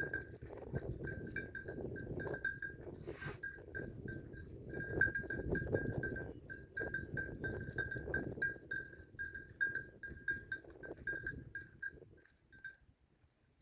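Bells hung on Khmer buffaloes clinking rapidly and irregularly on one pitch as the animals move and feed, over a low rustling noise. The clinking dies away near the end.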